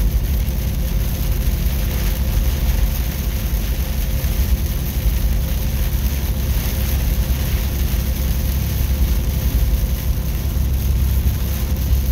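Steady drone inside a semi-truck cab cruising on a rain-soaked highway: a deep engine and road rumble under an even hiss of wet tyres and rain on the windshield.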